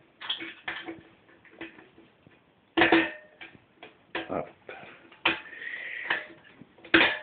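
Metal parts of a hobo stove clinking and tapping as they are bent and worked by hand, with three sharper metallic clanks about three seconds in, about five seconds in and near the end. The middle clank rings on briefly.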